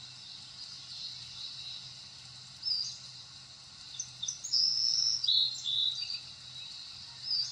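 Short, high-pitched bird-like chirps, one about three seconds in, a bunch in the middle and one near the end, over a steady high hiss and a faint low hum.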